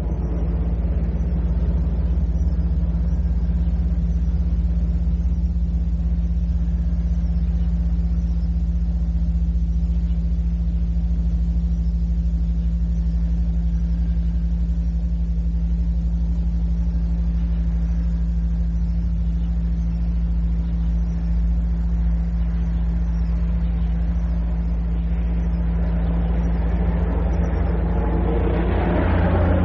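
Steady low hum and rumble on an old cassette recording, like a motor running, with a broader noise swelling in near the end.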